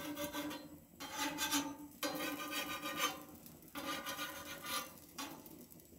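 Steel spatula scraping across the flat iron griddle plate, four long scrapes with short gaps between them, as it is worked under the cooking pancakes.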